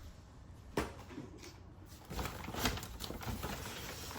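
Handling noises: a sharp knock about a second in, then rustling with light clicks and knocks from about halfway as school supplies are moved about and taken out.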